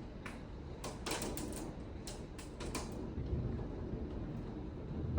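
Low rumble of thunder swelling from about three seconds in, after a few scattered sharp clicks and taps.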